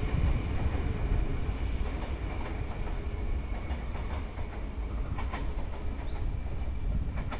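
NS VIRM double-deck electric train running away down the track, its rumble easing, with a few wheel clicks over rail joints and points about four to five seconds in.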